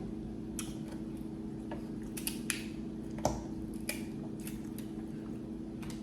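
Eating sounds from a seafood boil: scattered small clicks and cracks of shells and food being handled and chewed, over a steady low hum.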